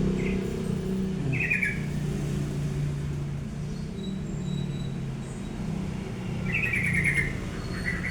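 Prenjak (prinia) giving short rattling chirps: two brief ones in the first couple of seconds, a longer burst about six and a half seconds in, and another near the end. A low steady hum runs underneath.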